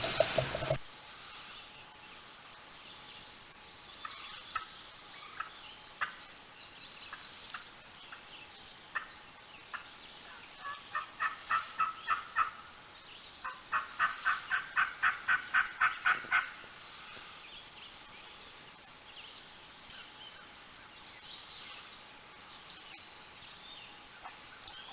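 Two runs of turkey yelps, the first about eight notes and the second about a dozen, evenly spaced at roughly four a second. A rush of noise cuts off about a second in, and faint songbird chirps sound between the runs.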